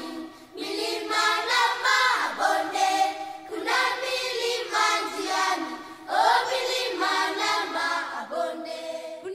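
Background music: a choir singing in phrases of a second or two, voices only with no low instruments heard.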